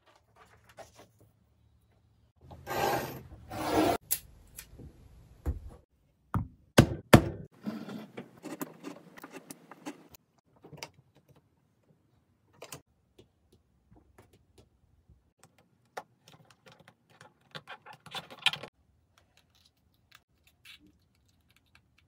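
Hands working leather with a ruler on a glass plate: rubbing and scraping, a quick run of sharp knocks and taps about six to seven seconds in, scattered light clicks, and another stretch of rubbing near the end.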